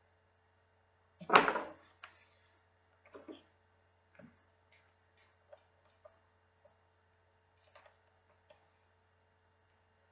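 A loud sharp knock about a second in, followed by a few softer knocks and scattered light clicks and taps, over a faint steady hum.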